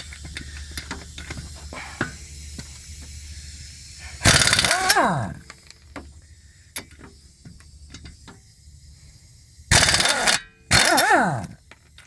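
Impact wrench rattling on a car wheel's lug nuts in short bursts: one about four seconds in and two close together near the end. Its motor winds down in pitch as each burst stops.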